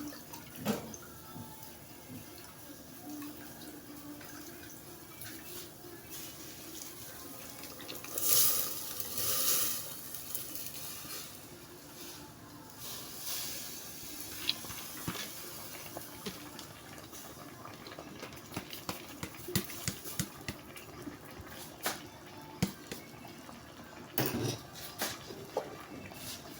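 Rice going into a pot of boiling meat stock: a burst of pouring and splashing about eight to ten seconds in, and scattered clinks of pot and utensil over the bubbling of the stock.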